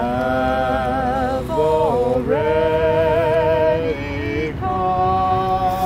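A single voice singing a slow song in long held notes with vibrato, over a low rumble.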